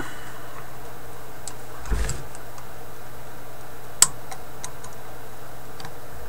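Small clicks and taps of wire leads and hand tools being handled while a new filter capacitor is wired in, with a low knock about two seconds in and a sharp click about four seconds in, over a steady low hum.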